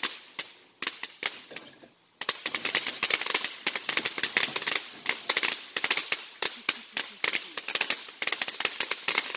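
Consumer firework going off as a rapid string of sharp firecracker pops: a few scattered cracks fading at first, then a little over two seconds in a sudden, dense, fast rattle of many pops a second that keeps going.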